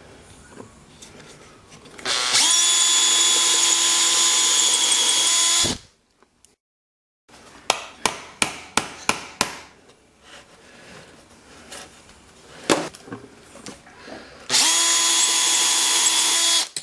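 An electric drill runs at steady speed, boring bolt holes in wood, in two runs of a few seconds each: the first near the start, the second near the end. Between them comes a quick series of sharp clicks.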